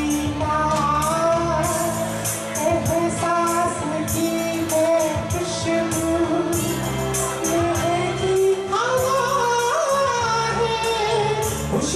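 A man singing a Bollywood-style song live into a handheld microphone over a backing track with bass and a steady beat.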